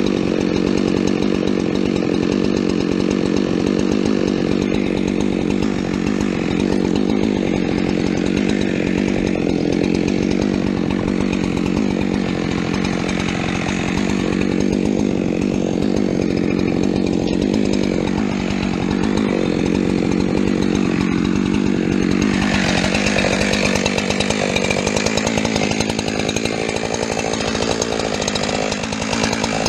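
Chainsaw running steadily under load while cutting fir wood, with a change in its note about three-quarters of the way through. The chain is dull, by the uploader's account.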